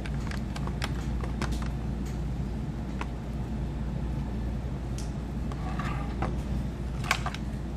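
Light clicks and taps of a screwdriver and screws working into the shell of a hemispherical speaker pod as the pod is handled, with a sharper knock about seven seconds in, over a steady low background hum.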